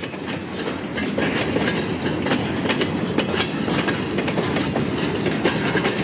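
Freight train of empty bulkhead flatcars rolling past, a steady rumble with the wheels clacking and rattling irregularly.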